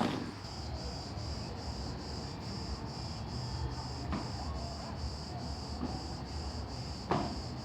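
Insects chirping in a steady high pulse, about three a second, over a low background rumble, with a short bump at the start and another about seven seconds in.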